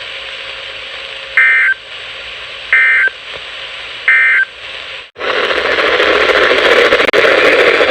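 Emergency Alert System end-of-message data bursts: three short two-tone digital chirps, evenly spaced about 1.3 seconds apart, over radio hiss, marking the end of the weather alert. About five seconds in the signal drops out briefly and a louder hiss of radio static takes over.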